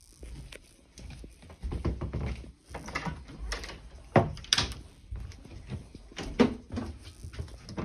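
Footsteps and handling noise as a phone is carried across a carpeted room, with a few sharp knocks and clicks from an interior door being handled, the loudest about four seconds in and again near the end.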